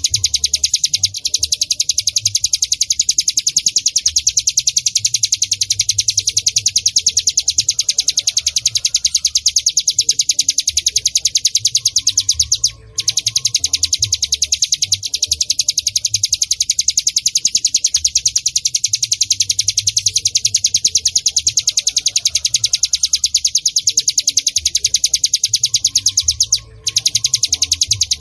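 Ciblek gunung (hill prinia) singing: a long, fast run of rapid high chipping notes that breaks off briefly about halfway and again near the end.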